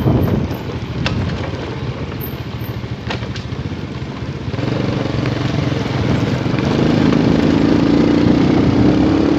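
Small motorcycle engine running under way. It gets louder and pulls harder from about halfway through, rising a little in pitch near the end as it accelerates past a car.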